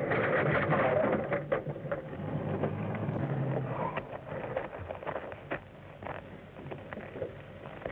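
Old car engine running, then fading away over the first few seconds, with scattered knocks and clatter through to the end.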